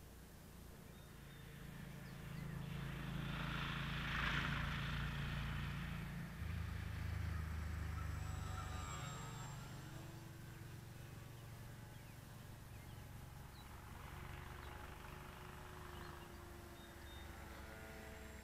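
Durafly Junior electric RC plane's motor and propeller buzzing as it flies past, loudest about four seconds in, then fading, with a second, fainter pass near the end.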